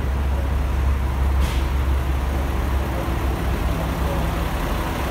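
Diesel railcar engine idling with a steady low rumble at the platform, with a short hiss about a second and a half in.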